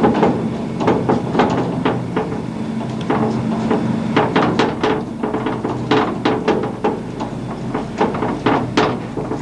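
Mine shaft cage rattling as it rides up the shaft, with irregular sharp knocks several times a second as it runs along the shaft guide rails, over a steady low hum.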